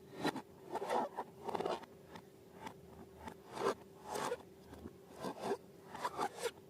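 Slime being handled by hand, making a run of irregular, crackly bursts, with a faint steady hum underneath.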